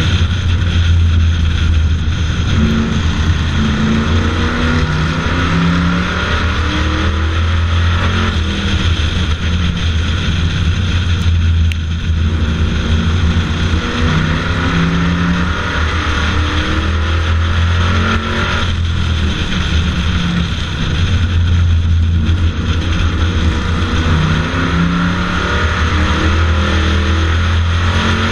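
Bomber stock car's engine running hard around an oval, its pitch climbing on the throttle and falling back over and over, every several seconds, as the car powers out of each turn and lifts for the next. A steady rush of wind noise lies over it.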